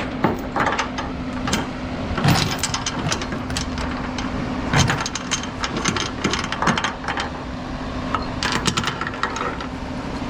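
Steel tie-down chain clinking and rattling in irregular knocks as it is handled and wrapped, over a steady low hum.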